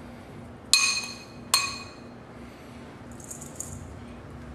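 Two clear, ringing clinks of a spoon against a bowl, about a second in and just under a second apart, each dying away briefly.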